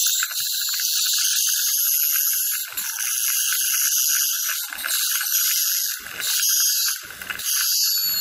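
Piezoelectric ultrasonic dental handpiece with a diamond-coated margin tip working along the tooth's gum margin under water spray: a steady, high-pitched hissing whine that dips briefly several times.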